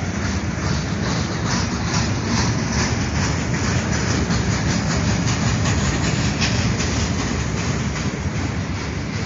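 Freight train of boxcars and intermodal container cars rolling past close by at speed: a steady rumble of steel wheels on rail with a rapid clatter of wheel clicks over the joints.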